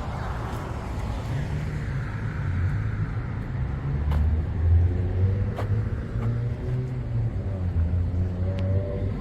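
Road traffic: car engines passing by, with a steady low rumble and an engine note that climbs slightly near the end.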